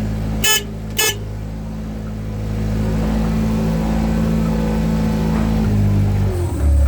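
Vehicle engine running steadily, with two short sharp sounds about half a second apart near the start; about six seconds in the engine note drops and a deeper, louder rumble comes in.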